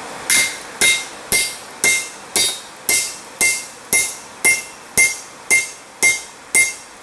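Hand hammer striking the top of a length of all-thread rod held upright on a hot steel plate over an anvil, driving a dimple into the plate. The blows are steady, about two a second, each with a short metallic ring.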